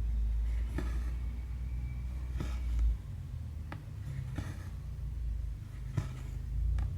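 Hand cross-stitching: a needle pushed through the canvas and thread drawn after it, giving a soft click or swish about once a second, over a low steady rumble.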